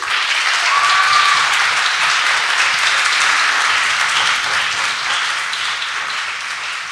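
Audience applauding, a dense, loud clapping that starts at once and slowly tapers off, with one brief high note standing out of it about a second in.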